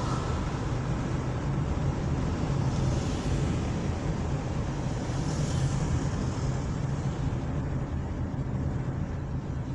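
Steady road noise inside a moving car's cabin: a low engine-and-tyre drone with an even hiss of tyres on asphalt.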